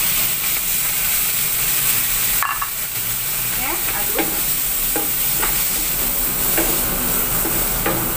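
Sliced red and green chillies sizzling steadily in a hot oiled frying pan after a splash of water is added to soften them, stirred with a wooden spatula. From about halfway through, the spatula scrapes the pan in short strokes, roughly one or two a second.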